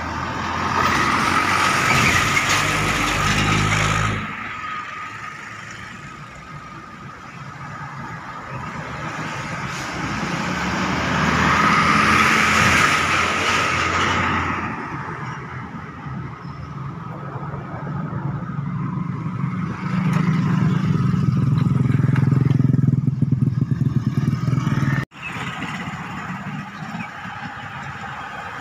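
Large buses driving past close by, one after another, their diesel engines running and tyres hissing as each swells up and fades. Later a heavy low engine drone builds and cuts off suddenly, leaving a steadier traffic rumble.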